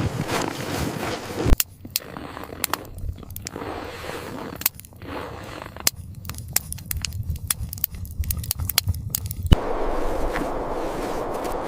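Irregular sharp crackles and snaps, at times several a second, between stretches of steady rushing noise in the first second and a half and from about nine and a half seconds in.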